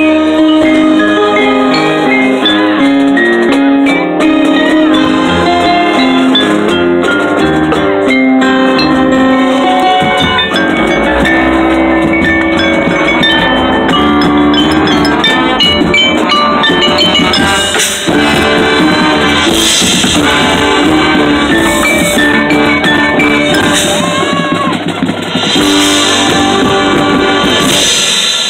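High school marching band playing live: sustained wind chords and melody over drums, with front-ensemble mallet percussion such as marimba. In the second half, loud bright crashes recur every second or two.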